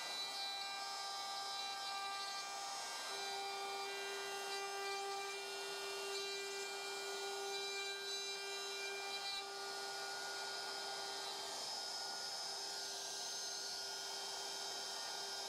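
DeWALT DCW600 cordless compact router, mounted in a DNP612 plunge base, running at a steady high whine while its bit cuts into wood. About ten seconds in the whine shifts slightly and the cutting sound eases while the motor keeps running.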